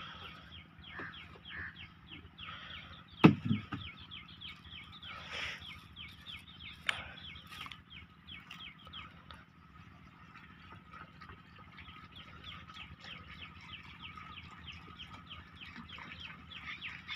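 Chickens clucking with birds chirping in a rapid, steady stream, and one sharp knock about three seconds in.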